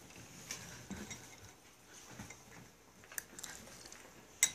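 Faint scattered clinks of a metal spoon stirring in a glass of milk, with soft paper-towel rustling and a sharper clink near the end.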